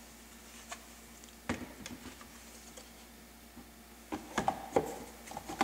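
Light clicks and taps of the fuse box's plastic housing and parts being handled: a few scattered clicks, then a quicker run of clicks near the end as the upper housing is set over the board.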